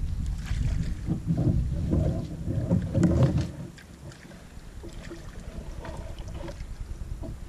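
Water sloshing and splashing as a hunter wades in shallow water, over a low rumble. Both drop suddenly a little past halfway to a quieter, steadier background.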